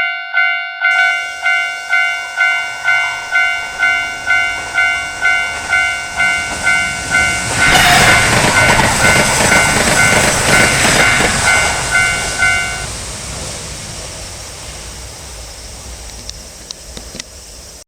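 Japanese railroad crossing warning bell striking about two and a half times a second while a train approaches and passes, loudest about eight to twelve seconds in. The bell stops near the end of the pass, and the train noise then fades away.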